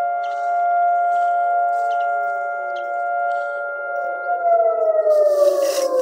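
Civil-defence air-raid siren sounding a steady chord of several tones, then winding down in pitch from about four seconds in. It is an attack warning, which the speaker takes for an attack from Gaza.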